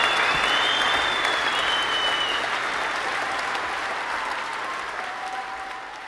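Crowd applauding, with a few high whistles over it, fading down steadily as the clapping dies away.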